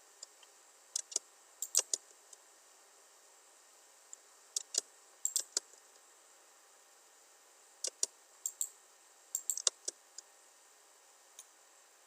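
Computer mouse and keyboard clicks, sharp and short, coming singly and in small clusters of two to four every second or two with pauses between.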